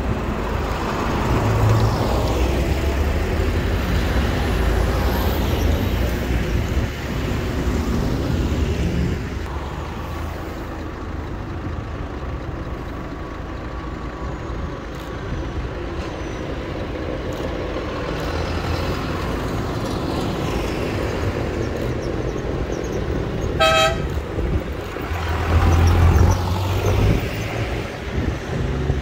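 Tractors' diesel engines and tyres passing close by on the road one after another, swelling and fading as each goes past. A short horn toot sounds once near the end.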